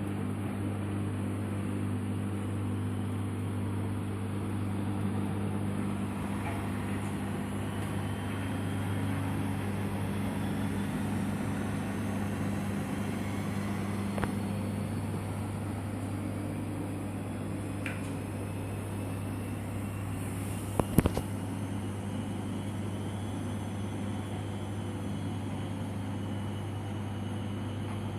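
Washing machine running with a steady low motor hum and a few steady higher tones. A couple of sharp knocks come about two-thirds of the way through.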